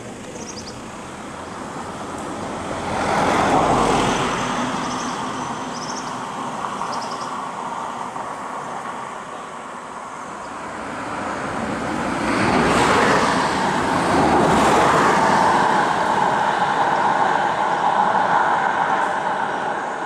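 Motor vehicle engine and tyre noise swelling up twice, about three seconds in and again from about twelve seconds, the second time staying on as a steady engine drone. Faint high chirps in the first few seconds.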